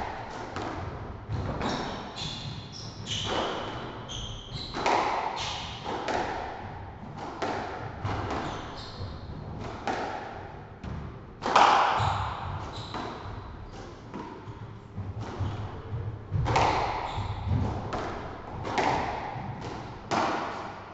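Squash rally: the ball is struck by rackets and smacks off the court walls, about one hard hit a second, each echoing in the enclosed court, with short high squeaks of court shoes on the wooden floor.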